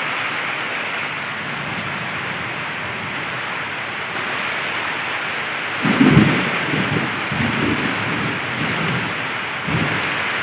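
Heavy rain falling steadily during a storm, with a low rumble of thunder rolling in several swells from about six seconds in.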